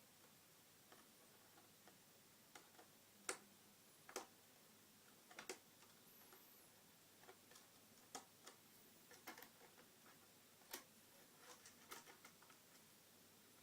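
Faint, sharp clicks at irregular intervals from a screwdriver turning the captive screws of a mid 2011 iMac's RAM access cover.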